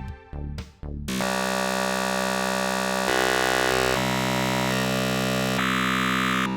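Dark MIDI ringtone music, an extremely dense MIDI arrangement. A few short staccato chords give way, about a second in, to a loud, buzzing wall of held notes across the whole range. The wall changes chord several times and cuts off suddenly near the end.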